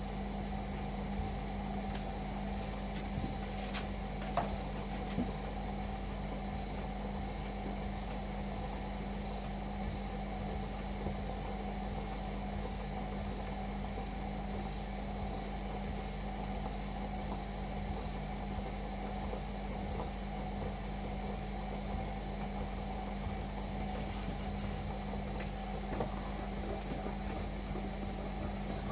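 Indesit washing machine running with a steady, even hum and a few faint clicks.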